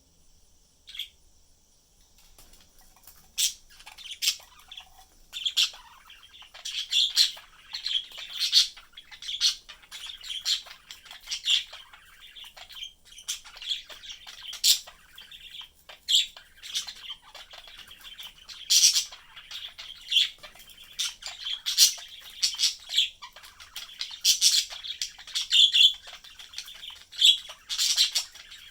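Pet budgerigars chirping and chattering: a stream of short, sharp, high-pitched calls and squawks that start sparse and become busy and overlapping after the first few seconds.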